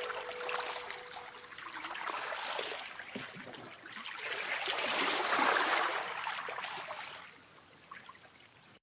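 Rushing water that swells twice, the second time louder, then fades away near the end. A held music note dies out in the first second.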